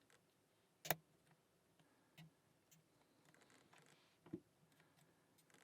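Sparse metallic clicks of a lock pick and tension tool working the pins of a SOL 2500 padlock, otherwise near silence. One sharp click about a second in, a softer one around two seconds, and another sharp one past four seconds.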